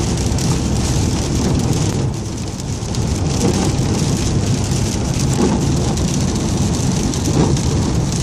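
Strong storm wind blowing and buffeting the microphone, a heavy, unsteady low rumble of noise that eases briefly about two seconds in.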